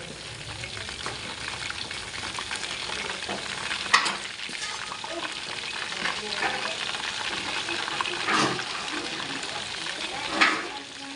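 Chicken wings sizzling as they fry in hot oil, a steady hiss, with three louder sharp knocks about four, eight and ten and a half seconds in.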